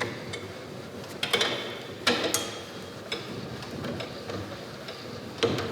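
Metal clicks and clanks from a Gedore stationary spring compressor as the coil-spring tension on a strut is released: about five separate sharp knocks, spaced irregularly.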